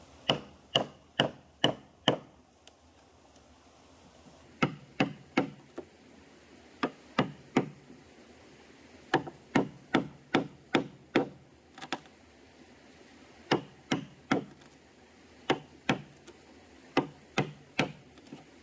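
A chisel chopping into a sawn wooden plank to cut out a hole: sharp wooden strikes about two a second, in short runs of two to six with pauses between.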